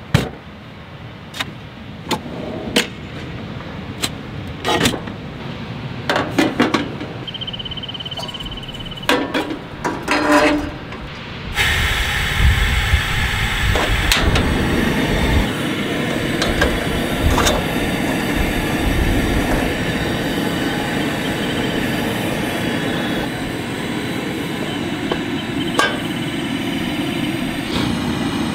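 Clicks, clanks and knocks of camp-kitchen gear being handled: a slide-out fridge tray, latches and the metal parts of a camp stove. About twelve seconds in, a steady rushing noise sets in and runs on under a few more knocks.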